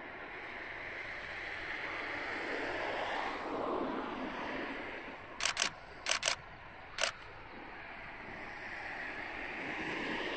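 JR Hokkaido H100 diesel railcar running past at a distance, a broad rumble that swells and sags. Halfway through come five sharp clicks, two quick pairs and then a single one.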